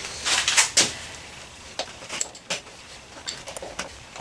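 Scattered sharp clicks and knocks of hand tools being handled, a quick cluster in the first second and then single taps, while the motorcycle's headlight bolts are worked on.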